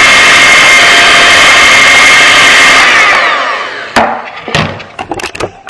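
Electric hand mixer beating thick cookie batter in a glass bowl, its motor running with a steady high whine, then winding down about three seconds in. A few sharp knocks and clicks follow near the end.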